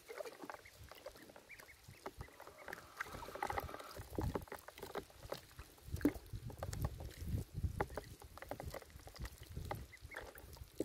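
Welsh Harlequin ducklings pecking at a dandelion leaf and dabbling in a water tub: a busy patter of small bill clicks and splashes, with soft peeping a few seconds in.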